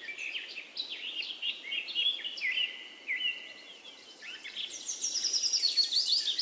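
Songbirds chirping and singing: many short, quick notes, with a fast run of high, descending notes about five seconds in.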